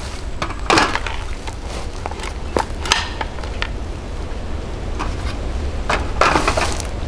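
Scattered clicks and light knocks of a Hi-Point 995 carbine and its magazine being handled on a folding table while the ammunition is changed, with a small cluster of knocks about six seconds in. A steady low rumble runs underneath.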